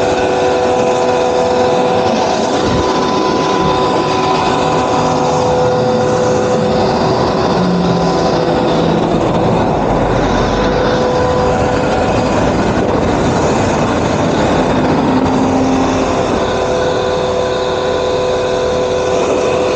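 Stream high-pressure washer running, its motor and pump whining steadily under the noise of the water jet spraying.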